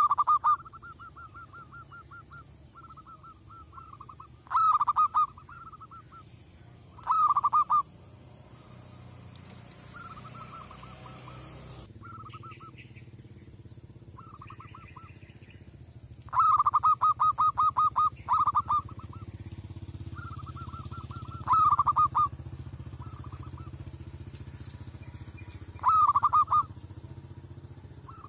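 Zebra dove cooing: rapid staccato trains of coos. A loud train comes every few seconds, with softer runs of coos between them.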